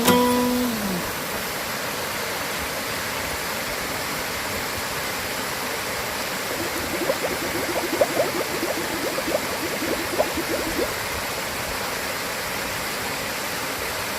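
Valley stream running, a steady rush of clear water. A guitar chord fades out in the first second, and from about six to eleven seconds in a rapid run of short pitched notes, several a second, sounds over the water.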